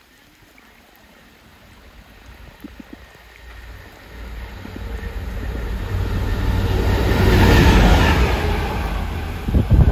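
DRS Class 66 diesel locomotive running light engine, its two-stroke V12 diesel growing steadily louder as it approaches and passing close about eight seconds in. A few sharp clacks of its wheels over the rail joints come near the end.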